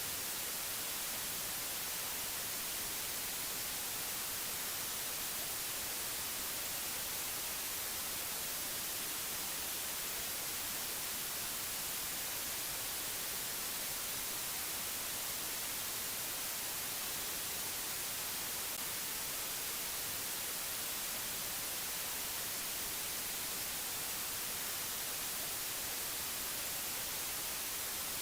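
Steady white-noise hiss, even and unchanging, strongest in the high treble.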